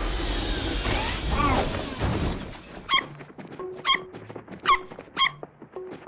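Cartoon sound effect of a flying jeep swooping down: a loud rushing whoosh with a falling whistle that ends about two and a half seconds in. After it come short, high squeaks, about one a second.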